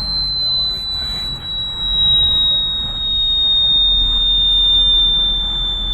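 A continuous shrill electronic tone, played as an annoying-sound prank, sliding very slowly lower in pitch, over the low rumble of a car interior.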